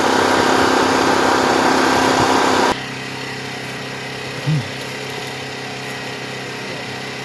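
A portable generator running steadily. For the first three seconds a louder, higher machine whir sits on top of it, typical of a power tool such as an electric chainsaw running, and it cuts off sharply.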